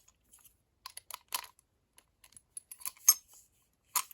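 Scattered metal clicks and clinks of a Scandinavian padlock being handled, its adjustable shackle being moved in the lock body. The sharpest click comes about three seconds in, with another near the end.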